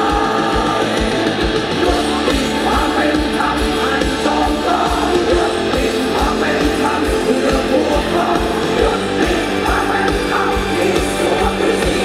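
Live rock band playing loud through a festival PA: electric guitars, drums with a steady kick beat, and a sung vocal line, heard from within the crowd.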